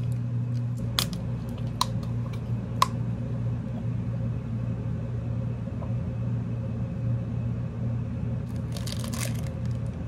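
Steady low room hum, with three sharp clicks in the first three seconds and a brief rustle of crinkling plastic near the end as a snack wrapper is handled.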